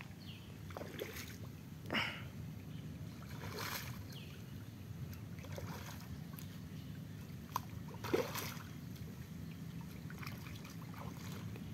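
A hooked fish thrashing at the surface of a pond, giving a few short splashes, the loudest about two seconds in and again about eight seconds in, over a low steady hum.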